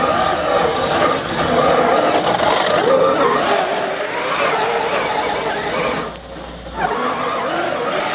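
1:5 scale electric RC rally car with a brushless motor and all-steel gears, its motor and gear whine rising and falling with the throttle over tyre noise on dry dirt. The sound drops away briefly about six seconds in, then picks up again.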